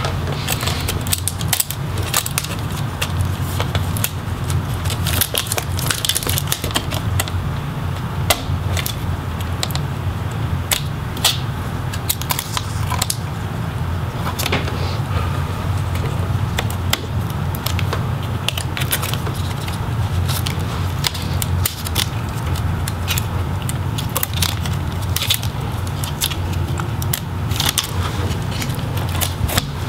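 Small plastic clicks and crackles as ribbon cables and connectors are unplugged from a laptop motherboard, over a steady low hum.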